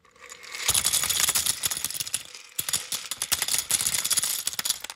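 Many small plastic bricks clicking and clattering together in a dense, busy rattle. It comes in two long runs with a short break a little past halfway.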